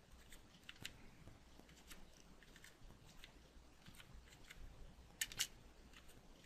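Faint keystrokes on a computer keyboard, typing a short text label, with two sharper clicks close together about five seconds in.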